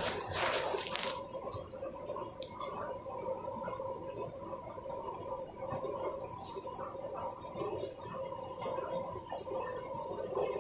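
Candy front-loading washing machine during its rinse and spin cycle: water gurgling and sloshing inside over a steady hum, with a few light clicks.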